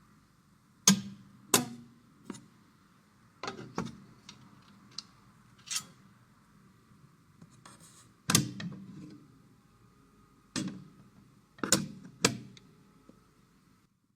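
About a dozen sharp clicks and knocks at irregular intervals, from PC hardware being handled and fitted during assembly.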